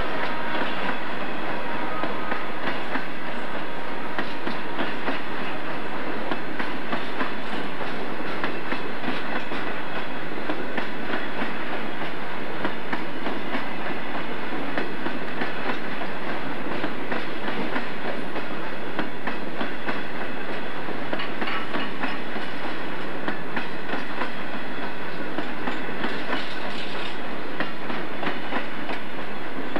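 Freight train hopper cars rolling past close by: a steady rumble of steel wheels on rail, with regular clicks as the wheels cross the rail joints.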